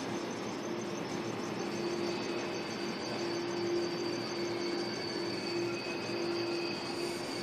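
Sydney Trains OSCAR (H-set) electric multiple unit pulling into a station platform, its cars rolling past with a steady noise of wheels on rail and a steady high electrical whine from its traction equipment.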